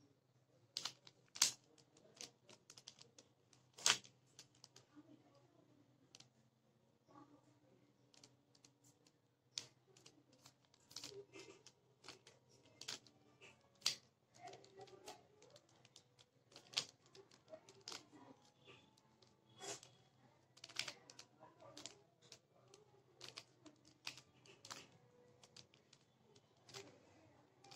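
Mirror cube being turned by hand: irregular plastic clicks and clacks as its layers are twisted, a few louder snaps among quieter ones.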